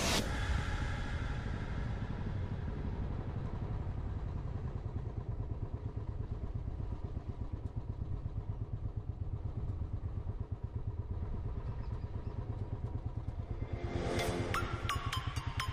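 Motorcycle engine running steadily while riding at low speed, a low rumble with an even pulsing beat. Electronic music with sharp beats comes in near the end.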